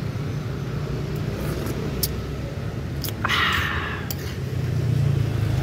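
A person slurping thin tahu gejrot broth from a metal spoon, one short slurp about three seconds in, over a steady low hum.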